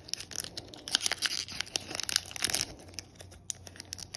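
Foil wrapper of a Yu-Gi-Oh booster pack crinkling and tearing as fingers work at its top to open it, with crackles thickest through the middle.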